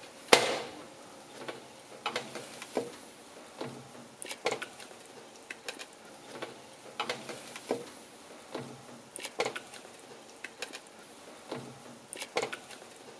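Slotted metal spatula tapping and scraping on a silicone-lined baking sheet as baked sweet potato rounds are flipped, in short irregular clicks a second or so apart, with a sharper knock at the start.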